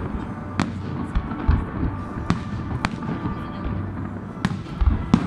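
Fireworks display: shells bursting in sharp, irregularly spaced bangs, about eight of them, the loudest cluster near the end, over a continuous low rumble of further explosions.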